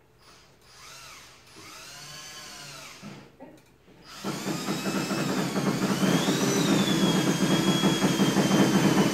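Power drill run in two short bursts, its pitch rising and falling as it speeds up and slows, then held on steadily and much louder from about four seconds in, its whine sinking slightly.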